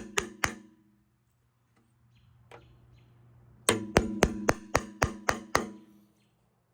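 Hammer striking metal with a ringing, pitched clang: a few blows at the start, then after a pause of about three seconds a run of about eight more, roughly four a second. The blows are hammering on a small-block Chevy V8's steel oil pan to break loose a bond of RTV sealant that holds it stuck to the block.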